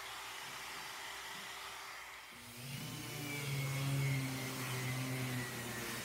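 A random orbital sander with its dust extractor spins up about two seconds in, rising in pitch, then runs steadily with a hum and a vacuum-like rush as it sands an end-grain wooden cutting board.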